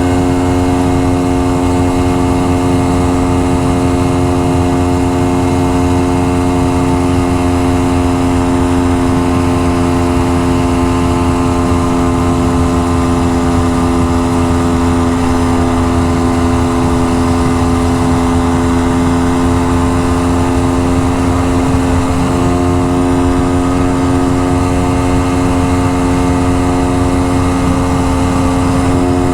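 Honda Dax-style motorcycle's single-cylinder four-stroke engine running at a steady, unchanging speed, its exhaust loose and leaking.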